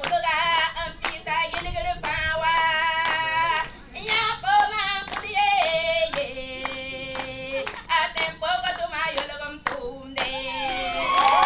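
A woman singing a melody into a microphone with steady rhythmic hand clapping. Crowd noise swells near the end.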